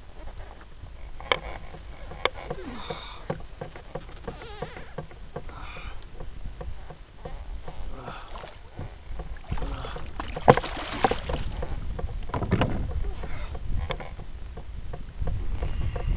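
A fishing reel being cranked against a hooked amberjack, making sharp clicks, with water lapping against a kayak hull. About ten seconds in comes a louder rush of splashing water, and another rush near the end as the fish comes up beside the kayak.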